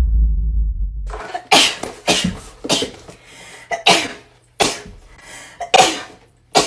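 A woman sneezing in a rapid fit, about seven sharp sneezes in quick succession, some with a short intake of breath before them. Before the sneezes, a low rumble cuts off about a second in.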